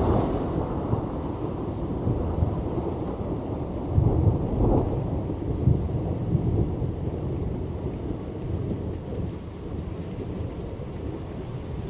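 Thunder rumbling over steady rain, with a louder roll about four seconds in that dies away toward the end.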